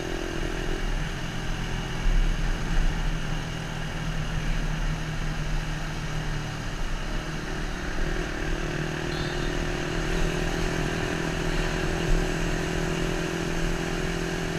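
Motorcycle engine running under way with wind and road noise, picked up by a GoPro Hero 3+'s internal microphone. The engine note holds steady, dips briefly about halfway through, then comes back.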